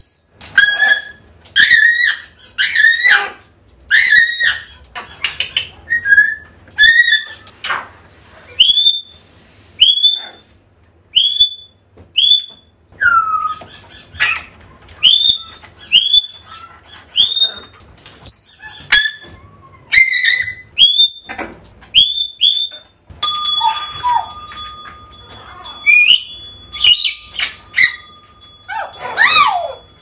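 African grey parrot calls: loud, sharp whistles repeated about once a second, many ending in a short upward hook. In the last several seconds a steady held tone runs beneath the calls.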